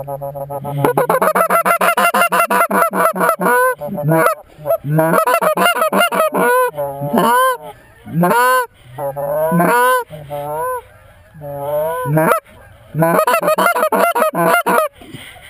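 Loud goose honks and clucks in quick repeated runs, each call sweeping up and down in pitch, with short breaks between runs and stopping just before the end.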